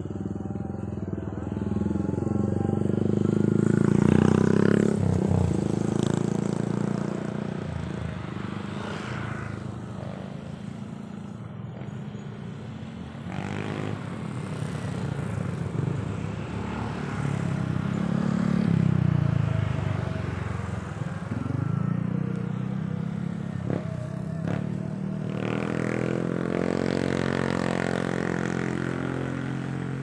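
Engines of passing motor vehicles, their pitch rising and falling as they go by, swelling three times.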